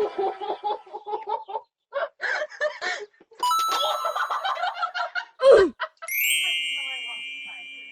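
A single bright bell-like ding about six seconds in, ringing on and slowly fading away. Just before it, a short loud tone slides steeply downward.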